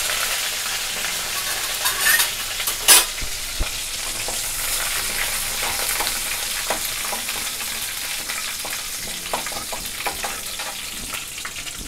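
Tempering frying in hot oil in a kadai: mustard seeds, shallots, dried red chillies and freshly washed curry leaves sizzling in a steady hiss that eases slightly over the seconds. A couple of sharp clicks about two and three seconds in.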